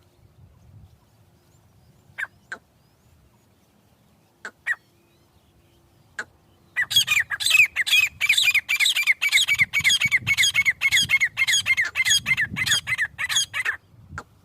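Francolin (teetar) calling: a few single sharp notes, then from about seven seconds in a fast, even run of loud ringing notes, about three a second, for some seven seconds.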